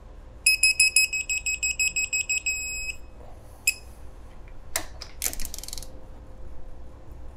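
Digital torque wrench beeping in quick succession, then holding a steady tone as a crankcase bolt reaches its set torque. One more short beep follows, then the wrench's ratchet clicks twice as the handle is swung back.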